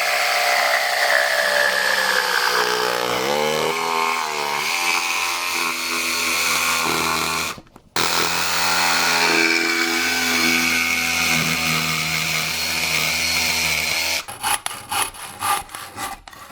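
Handheld power tool cutting wood, its motor pitch dipping and recovering under load; it stops briefly about halfway, then runs again. Near the end it gives way to a quick series of rubbing strokes on the wood.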